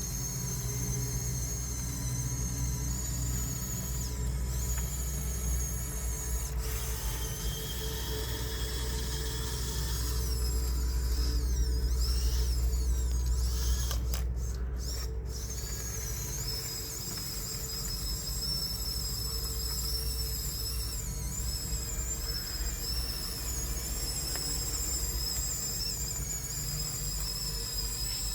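Electric drive motors and gearboxes of a Huina 1554 RC bulldozer whining as it works, with a steady low hum underneath; the high whine wavers in pitch as the motors change speed.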